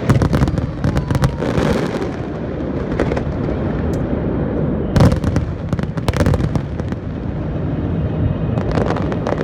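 Aerial display fireworks bursting overhead: a rapid run of bangs and crackles over a steady rumble, with the loudest bangs right at the start and again about five seconds in.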